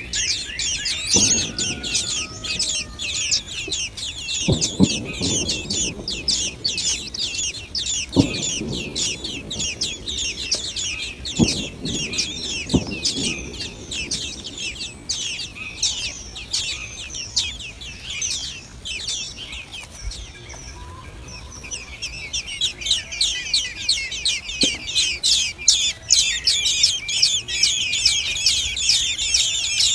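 Nestlings begging in a rapid, high-pitched chorus of cheeps, several calls a second: chicks calling to be fed. The cheeping eases off briefly about two-thirds of the way through, and a few low thumps sound in the first half.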